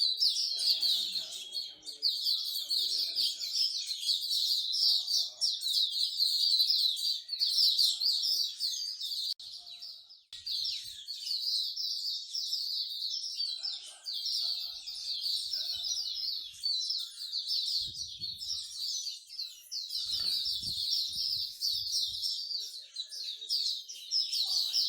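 Many small pet songbirds chirping and singing at once, a dense, continuous high-pitched chatter of rapid notes with no pause.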